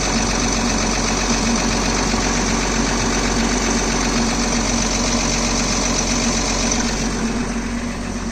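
Engine idling with a metallic knock whose cause is being sought. A thin high whine fades a little before the end.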